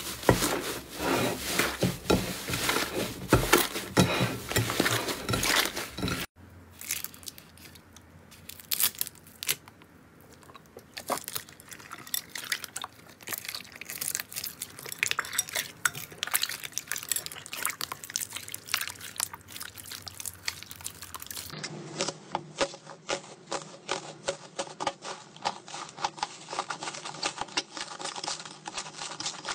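Hands squishing and kneading slime, giving a dense run of sticky crackles and pops. About six seconds in it turns to a quieter, wetter squelching of clear slime in a bowl. Later it turns to a steady stream of fast small pops and clicks as thick slime is pressed and folded.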